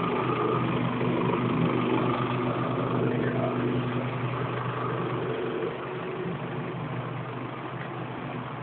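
Honda CBR125RR's single-cylinder four-stroke engine idling steadily, a little quieter from about six seconds in.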